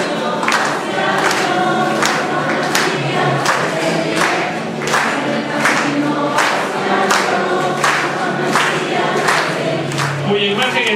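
A group of voices singing a religious hymn over music with a steady beat, about three beats every two seconds.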